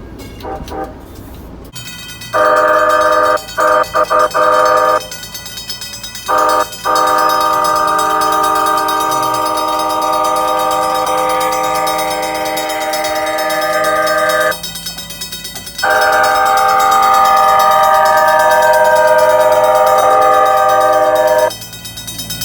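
Nippon Sharyo P865 light rail car's electronic K5LA-style horn sounding a loud multi-tone chord: a blast of about a second, a quick run of short toots, a short toot, then two long blasts of several seconds each, the last stopping near the end.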